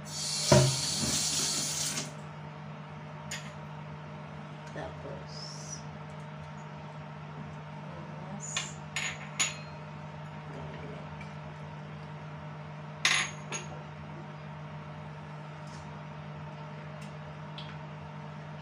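A kitchen sink tap runs for about two seconds, with a knock just after it starts, and is shut off. Then come a few scattered light clinks and taps of a small dish and garlic being handled over a plastic basin of fish. A steady low hum runs underneath.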